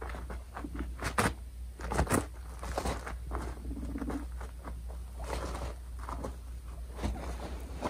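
Two guinea pigs scuffling and scurrying on a crinkly absorbent pad during a dominance fight: quick pattering and scraping of paws, two sharp knocks about one and two seconds in, and a brief low buzz about four seconds in.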